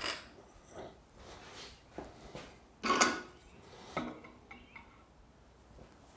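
A sharpened mower blade, steel, knocking and clinking against metal as it is handled and checked for balance. There are several separate clanks, the loudest about three seconds in.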